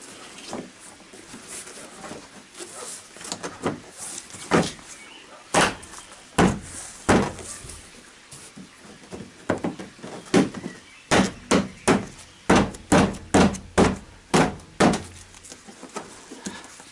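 Gloved palms thumping a Hyundai Solaris's plastic front bumper beside the headlight: a few scattered knocks, then a quick run of about nine, roughly two a second. The blows drive the headlight's four wedge tabs home into their slots in the front panel.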